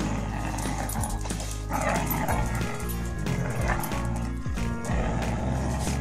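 Background music, with a dog barking over it a couple of times while playing tug-of-war with a rope toy.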